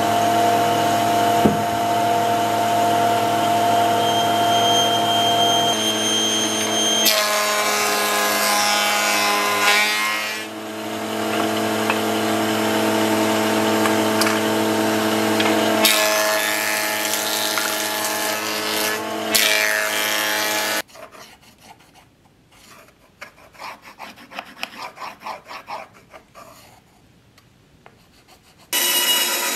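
Table saw running with a steady motor hum, its blade cutting through pine boards in two louder, rougher passes. The saw cuts off abruptly, giving way to faint, irregular scratching of a pencil tracing an outline on a wooden board. Near the end another saw starts running.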